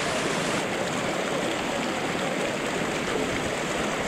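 Mountain waterfall spilling down a rock face: a steady rush of falling water.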